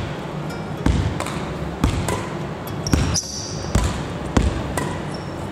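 Badminton net-front footwork on a wooden gym floor: shoes thudding as the player lunges forward and light shuttlecock hits off the racket, about once a second. There is a short high shoe squeak about three seconds in.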